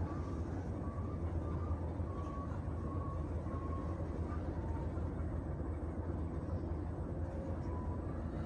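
A steady low motor hum, with short high peeps repeating about twice a second, mostly in the first half.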